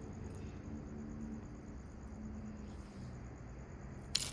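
Quiet outdoor background: a steady high insect trill pulsing rapidly, over a low rumble, with one sharp click near the end.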